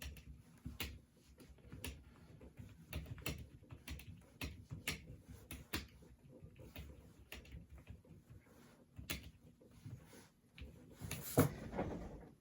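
Keys of an Apple A1048 keyboard being typed on, irregular single clicks and clacks, with a louder clatter of several keys together near the end.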